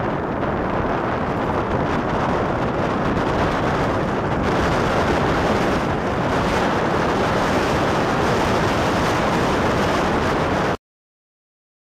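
Steady rushing rumble of a moving vehicle heard from on board, with wind buffeting the microphone; it grows a little brighter about halfway through and cuts off abruptly near the end.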